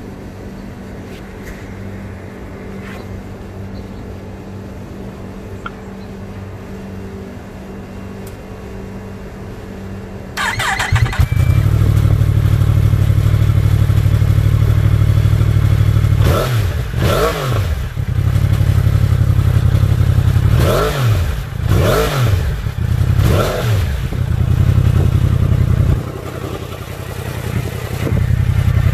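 A low steady hum, then about ten seconds in a starter whine and the Yamaha R1's crossplane inline-four catches and idles through an Akrapovic titanium slip-on fitted with a dB killer. It gives about five short throttle blips, the pitch rising and falling each time, then settles back toward idle near the end.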